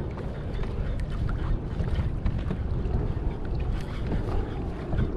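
Wind rumbling on the camera microphone, with choppy water lapping against a kayak.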